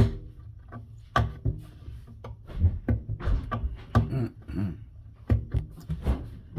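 Irregular taps, knocks and scratchy handling noises as griptape is worked loose and peeled from a skateboard deck by hand.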